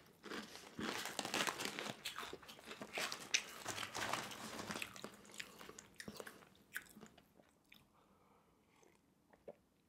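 Close-miked crunching and chewing of Flaming Hot Ruffles ridged potato chips, a dense run of crisp crunches that thins out to a few faint clicks about seven seconds in.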